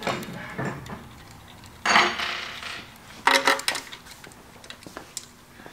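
Metal engine parts and hand tools clanking and clattering as they are handled and set down. There are two loud clanks, about two seconds in and about three and a half seconds in; the second one rings briefly.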